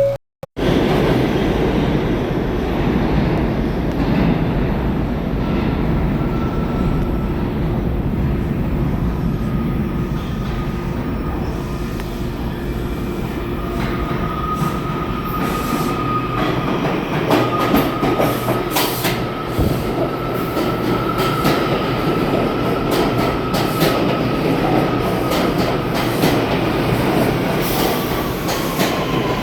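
New York City Transit R179 subway car running along the track, heard from inside the car: a steady rumble of wheels on rail with scattered clicks and a thin high whine that holds through most of the run. The sound cuts out completely for an instant just after the start.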